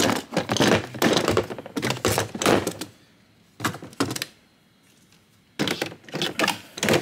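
Cordless power tools and batteries knocking and clattering as they are set down and shuffled into a hard plastic tool-box drawer: a quick run of knocks and rattles, a couple of single knocks, a quiet gap of about a second and a half, then more knocks near the end.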